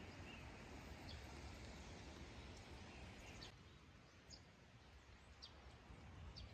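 Near silence: faint outdoor ambience with a few short, faint bird chirps.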